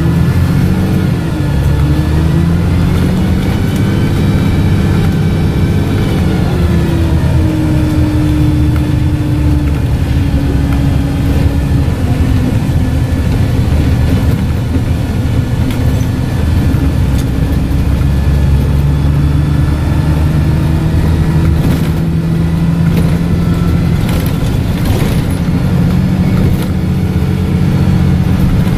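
Dennis Dart SLF bus's engine and loud Voith automatic gearbox heard from inside the saloon under way. The engine note climbs for about six seconds, drops sharply as the gearbox changes up about seven seconds in, runs steady, then climbs again past the halfway mark. A higher whine rises and falls with it.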